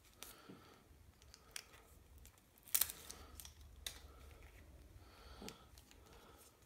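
Faint handling noise from a plastic action figure being turned and posed in the hands: a few sharp clicks, the loudest about three seconds in, over light rustling.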